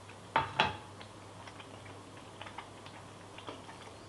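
Two sharp knocks of a utensil against the pan, then scattered light clicks and scrapes of a wooden spatula stirring sliced mushrooms into thick gravy.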